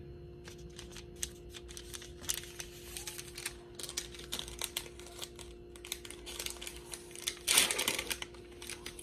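Crinkling and ticking of a sterile gauze packet being handled and peeled open, with one louder rustling tear of the wrapper about seven and a half seconds in.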